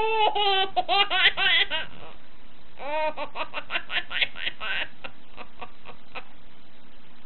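A toddler laughing in two high-pitched bouts of quick repeated giggles, the second ending about five seconds in.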